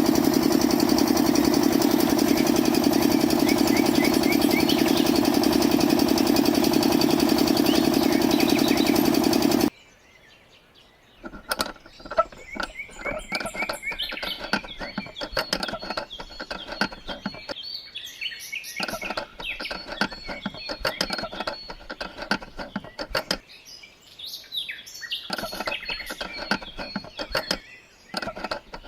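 A loud, steady droning hum for about ten seconds that cuts off suddenly. After a moment of quiet come birds chirping busily, mixed with clicks and taps.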